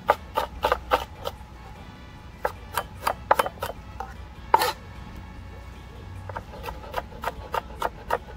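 Chef's knife chopping vegetables on a plastic cutting board: runs of quick sharp taps, about three to four a second, with short pauses about two seconds in and again about five to six seconds in.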